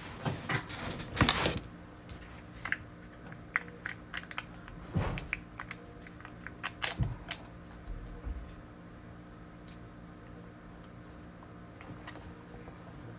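Crinkling and rustling of a wrapper being torn open and handled, with scattered sharp clicks and taps from utensils and a cup, busiest over the first several seconds; then it goes quiet apart from a single click near the end.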